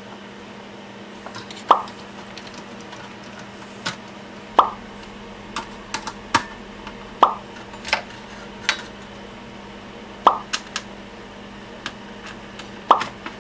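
Light clicks and taps of metal parts and cable plugs as a DVR's sheet-metal case, board and wiring are handled and fitted back together. Over them, a short pitched plop recurs about every two and a half to three seconds, louder than the handling. A low steady hum runs underneath.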